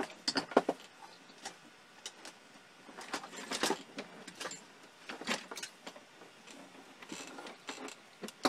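Rummaging for a cable among clutter on a workbench: cables and small hard objects being pulled out and knocked about, with irregular clicks, clatters and rattles in several short clusters.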